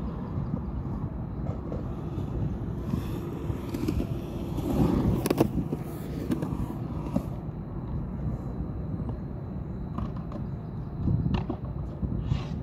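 Skateboard wheels rolling on a concrete skatepark bowl: a steady low rumble that swells as the rider passes close about five seconds in, with a few sharp clicks.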